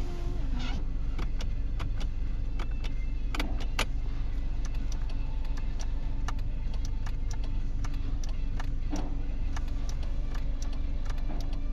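Car engine idling steadily, with many light, irregular clicks and ticks over it.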